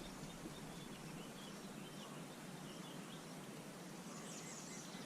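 Faint birds chirping now and then over a steady outdoor background hiss.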